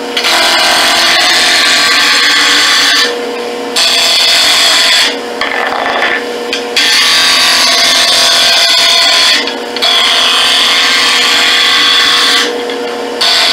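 Hand-held turning tool cutting a spinning red oak blank on a wood lathe, taking the square off it. The cutting comes in several long passes broken by short pauses, over the lathe's steady motor hum.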